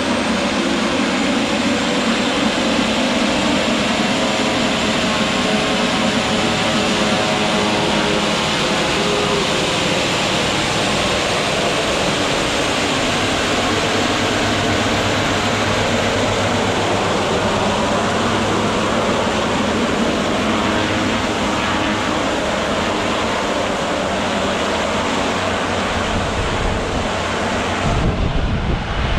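A twin-engine turboprop plane's engines and propellers run steadily while it taxis and turns on the runway. Near the end the sound deepens and grows louder as power comes up for the take-off roll.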